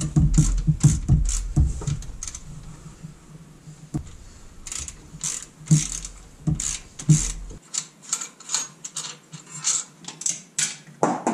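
Irregular metallic clicks and clinks of pliers working at hoses in a truck's engine bay. There are heavier handling bumps in the first couple of seconds, and the clicks come quicker from about four seconds in.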